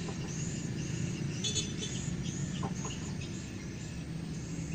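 Chickens clucking faintly in short, scattered calls over a steady low outdoor background noise.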